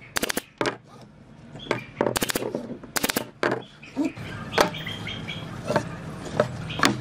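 Brad nailer firing brads into the mitred corners of a pine frame: sharp snapping shots in quick clusters over the first three and a half seconds. After that come lighter wooden knocks as the frames are handled and set down on the table.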